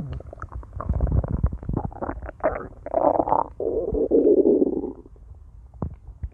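A person's stomach growling: a quick run of gurgles and pops, then a long drawn-out growl from about three to five seconds in, fading to a few faint pops.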